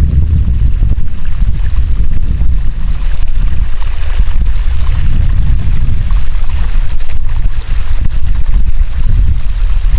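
Wind buffeting the camera's microphone: a loud, uneven low rumble that swells and dips, with a fainter hiss above it.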